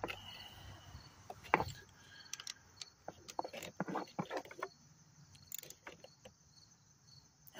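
Scattered faint clicks and metallic taps of a ratchet and socket extension being worked on the solenoid valve's mounting bolts, with a cluster of them in the middle.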